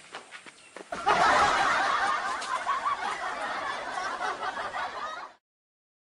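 Canned audience laughter from many people, starting suddenly about a second in and cutting off abruptly near the end.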